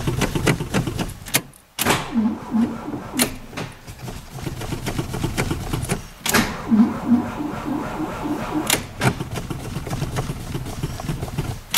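1950 DeSoto Deluxe's flathead straight-six being cranked over by its starter on a cold start after six months of sitting, turning over in an even rhythm. The cranking breaks off briefly about six seconds in, then starts again.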